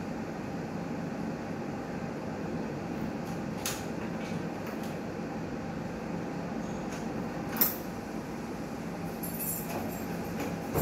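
Newmed Kronos S steam autoclave running with a steady mechanical hum. A few sharp clicks sound over it, the loudest about two-thirds of the way through.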